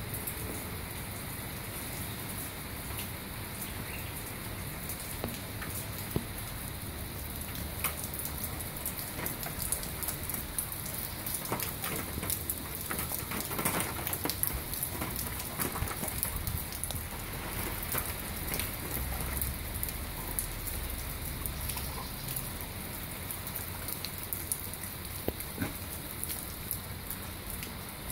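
A rain downpour falling steadily on paving and garden plants, with many close drops ticking.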